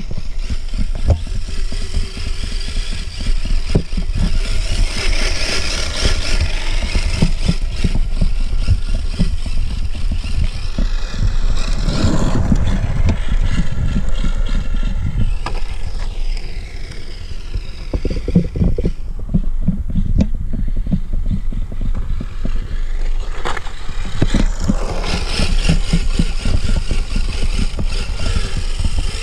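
Small electric motors whining, their pitch rising and falling, over a constant low rumble and rushing noise.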